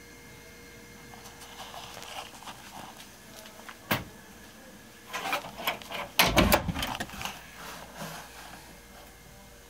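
Handling noise: a sharp click about four seconds in, then a couple of seconds of rustling and knocks, the loudest a low thump a little after six seconds, over a faint steady hum.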